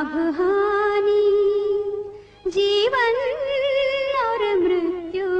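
A Hindi song with a singer holding two long, wavering notes over a steady backing drone. There is a short break between the notes, and the second note is higher and slides back down near the end.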